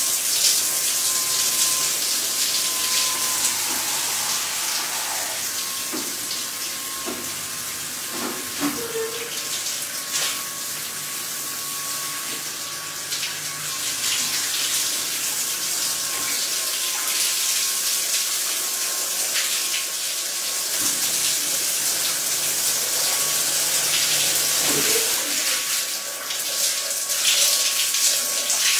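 Water spraying and hissing in a tiled shower cubicle from a 'Human Wash' body-washing machine as its motorised rotating brush scrubs a man, with a steady thin whine over the water and a few soft knocks.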